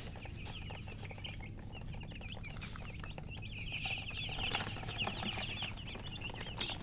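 A brood of newly hatched chicks peeping continuously: many short, high chirps overlapping, growing busier and louder about four seconds in. A steady low hum runs underneath.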